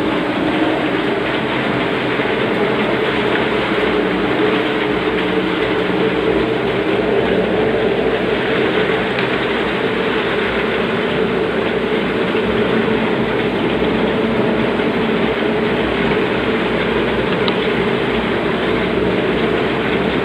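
CNC router machining melamine-faced particleboard panels, a loud steady mechanical noise of the spindle cutting with the machine running.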